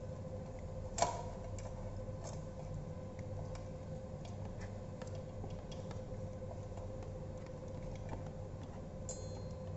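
Small clicks and taps of hands fitting plastic wiring connectors and an aluminium controller box onto an electric bike frame, with one sharper click about a second in. A steady hum runs underneath.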